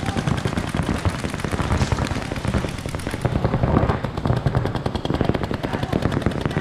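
Paintball markers firing rapid streams of shots, a dense, unbroken rattle of pops many times a second.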